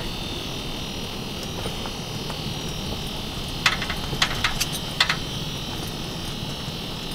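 Steady hiss of a running portable propane heater, with four sharp clicks about halfway through as the ice-fishing rod is handled.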